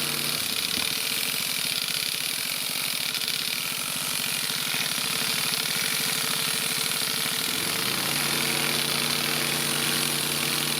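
Motorised olive harvesting machine: its engine runs at a steady idle, then a fast, even mechanical rattle takes over for about seven seconds before it settles back to idle.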